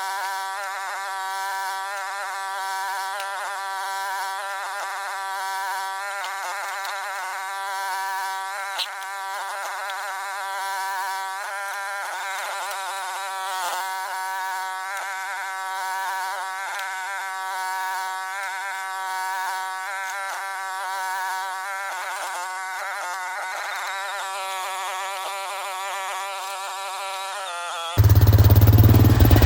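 Mini excavator engine and hydraulics as a high-pitched, buzzing drone that rises and dips in pitch every second or so, as the engine loads and unloads, like sped-up footage of the machine digging. Near the end it cuts off abruptly into the loud, low running of the same engine at normal speed.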